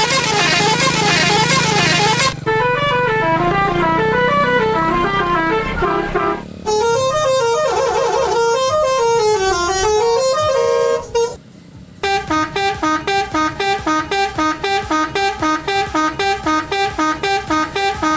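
Multi-tone 'telolet' horn of an odong-odong village tourist train playing a string of melodic horn tunes, one after another. A short break comes about eleven seconds in, then a quicker tune with a pulsing beat of about three notes a second.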